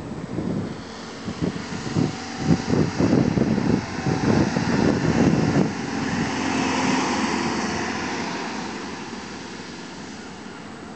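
A van driving past on the road, its engine and tyre noise swelling and then fading away. Before it passes, gusts of wind buffet the microphone in irregular thumps.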